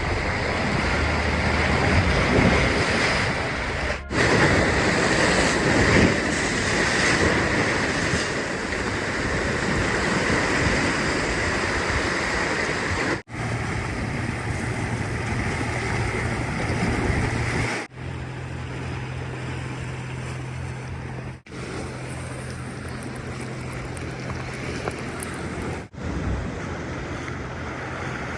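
Ocean waves washing on a rocky shoreline, a steady rushing noise with wind on the microphone. It comes in several separate takes, each break marked by a brief drop-out.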